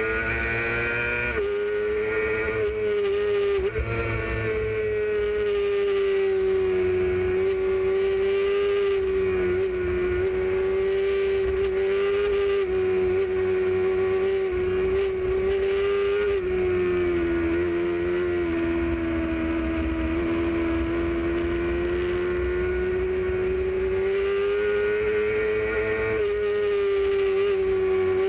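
Motorcycle engine running at high, fairly steady revs on the move, its pitch dipping briefly twice in the first few seconds, sinking a little through the middle and climbing again near the end, with wind rumbling on the microphone underneath.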